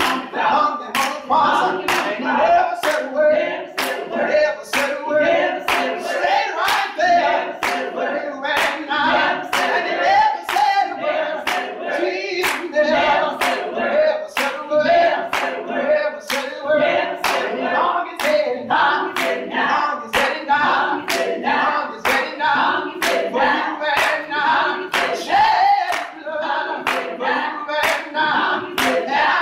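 A small gospel choir singing in harmony, with steady hand-clapping on the beat, about three claps every two seconds.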